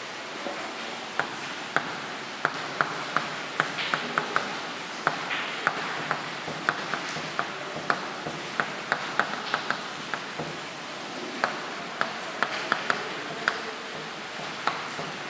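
Chalk writing on a blackboard: short, sharp taps and clicks as the chalk strikes and drags across the board, irregular at roughly two a second, with a brief pause about ten seconds in, over a steady hiss.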